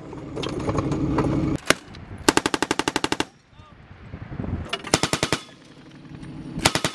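Vehicle-mounted 7.62 mm machine gun firing on a range: one shot, then a fast burst of about a dozen rounds, then two shorter bursts. A vehicle engine idles under the opening second and a half.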